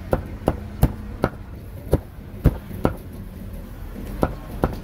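Cleaver chopping grilled pork on a chopping block: about nine sharp strikes at an uneven pace.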